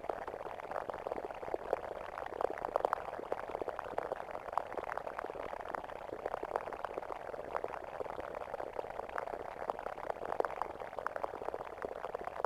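Roland Super Jupiter analog synthesizer playing a custom sound effect: a steady stream of dense, random small pops.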